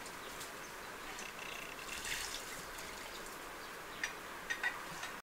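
Faint outdoor ambience: a steady hiss with a few faint short chirps and ticks.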